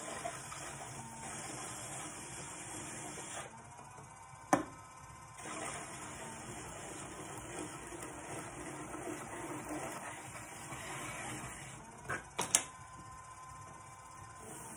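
Electric pottery wheel running with a faint steady whine while a hand-held tool rubs against the spinning wet clay in long stretches. There is a sharp knock about four seconds in and a few more about twelve seconds in.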